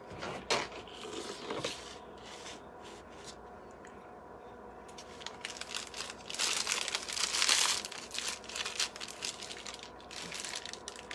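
Clear plastic piping bag crinkling as it is handled and its top twisted to push the fake frosting down toward the tip. There are short bursts near the start, then denser, louder crinkling through the second half.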